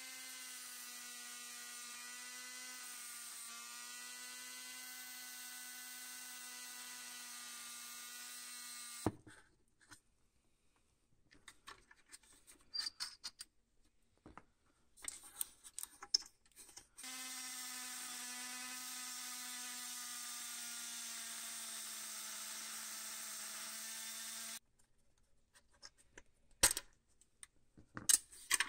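Handheld rotary tool with a small grey bit running steadily at high speed for about nine seconds, then stopping. After a stretch of light clicks and knocks from the die-cast toy being handled, it runs again for about eight seconds, its pitch dropping slightly, and stops, followed by more small clicks.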